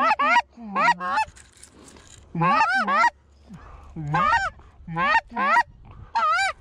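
Geese honking and clucking in quick runs of calls, several overlapping, with two short lulls partway through.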